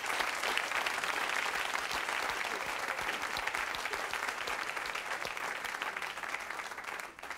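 Studio audience applauding steadily, the clapping dying away near the end.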